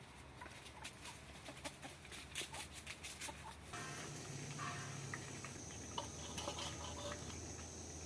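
Chickens clucking, with a scatter of sharp clicks and taps in the first few seconds. A steady high-pitched tone and a low hum come in about four seconds in.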